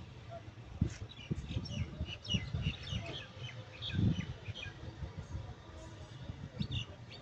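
Small birds chirping, a quick jumble of short high chirps in two spells: one from about a second in to past three seconds, and another near the end. Underneath runs an irregular low rumbling with bumps, and the loudest of these comes about four seconds in.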